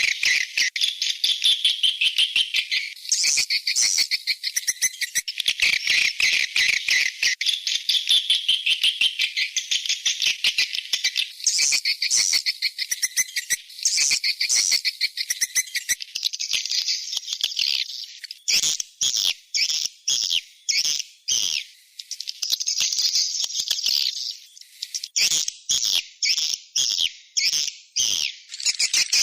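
Swiftlet call recording used as a lure for swiftlet houses: fast, buzzy, high-pitched twittering trills. The trills run unbroken for about the first two-thirds, then come in short separate bursts.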